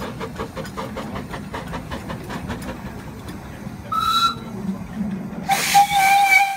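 Double-headed narrow-gauge steam locomotives working a goods train: steady exhaust beats about four a second. About four seconds in comes a short, high steam-whistle blast, then near the end a longer, lower whistle, the loudest sound, which cuts off sharply.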